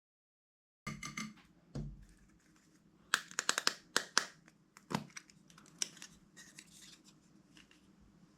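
Slime being pressed and worked by hand, giving sharp clicks and crackles: a quick flurry of clicks about three seconds in, then a few single snaps, fading to soft handling noise near the end.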